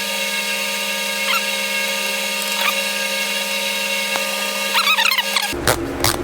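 A steady mechanical whine made of several held tones, like a small electric motor running. It cuts off suddenly about five and a half seconds in.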